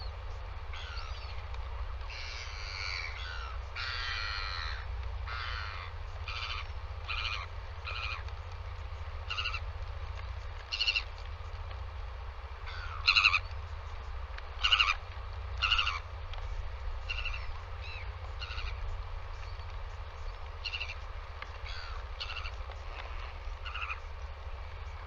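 Birds calling: a long series of short, harsh cries, one every half second to a second, with a few louder calls in the middle, over a steady low rumble.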